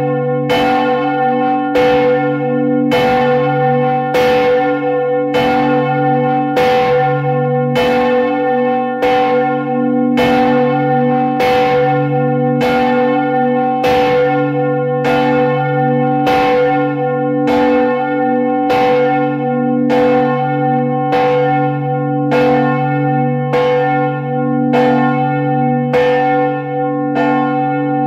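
Large church bell swinging full circle on its own, its clapper striking roughly once a second, each strike ringing on over a deep sustained hum.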